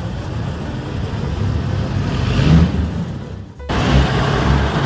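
Vintage car engines running as old cars drive slowly past. The sound breaks off sharply about three and a half seconds in, and another engine's rumble follows.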